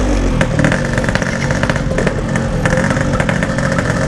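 Yamaha RX-King's 135cc two-stroke single-cylinder engine running at low, fairly steady speed through its aftermarket 'standart belek' packing-power exhaust.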